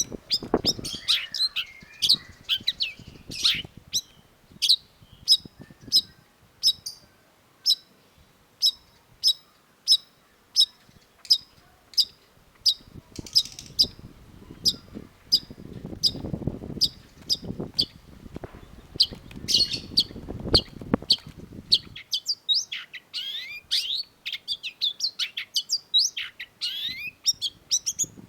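Long-tailed shrike (cendet) singing in full voice. A run of sharp, high, evenly spaced notes comes about twice a second, and a busier, varied stretch of gliding notes follows near the end. A low rumble sits under the song in the middle.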